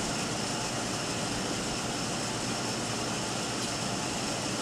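Steady machinery noise, even and unbroken, with no distinct knocks or strikes.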